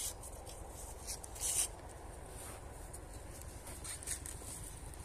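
Faint rustling and light scraping over a low outdoor rumble, with the loudest rustle about a second and a half in.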